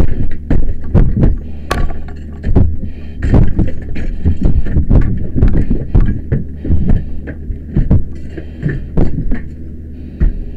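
Muffled, irregular low thumps and knocks, a few a second, over a steady low hum: gear knocking and rubbing against a firefighter's helmet-mounted camera as he moves and works.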